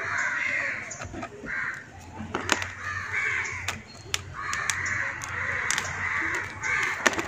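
Crows cawing repeatedly, harsh calls coming in short runs, with a longer run of cawing about two-thirds of the way in. Between them come a few sharp clicks and crackles as hands tease apart the coco-peat-bound roots of a Moses-in-the-cradle plant.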